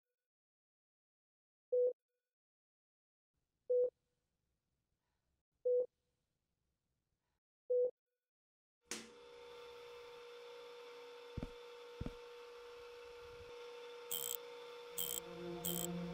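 Short electronic beeps, one every two seconds, over silence. About nine seconds in, a steady electrical machine hum switches on suddenly. Two low thumps follow, then four short bursts of hiss near the end, as added sound effects for a laboratory machine.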